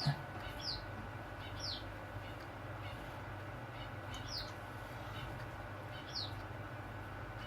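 A bird giving a short, high chirp that falls in pitch, five times at uneven intervals, over a steady low hum; a soft knock right at the start.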